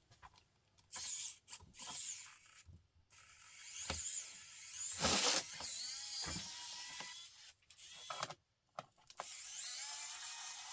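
Mechanical handling noise as a laptop is worked on: irregular creaks, scrapes and small clicks in short spells, with brief pauses between them.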